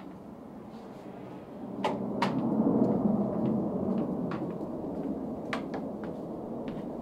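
Footsteps in flat shoes on a wooden deck: scattered light knocks. From about two seconds in, a louder noise without clear pitch builds and then slowly eases.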